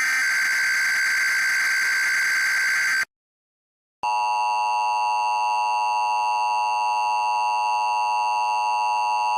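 Emergency Alert System SAME header: a harsh digital data burst encoding a required weekly test, lasting about three seconds, then a second of silence. After that the two-tone EAS attention signal starts and holds steady.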